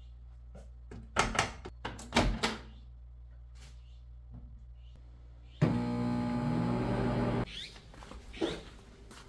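Several sharp knocks and clatters of kitchenware in quick succession, then a steady machine-like hum for about two seconds that steps up in pitch partway and cuts off suddenly.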